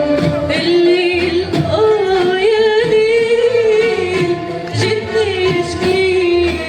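A woman singing long held, ornamented notes with vibrato, accompanied by an Arabic music ensemble.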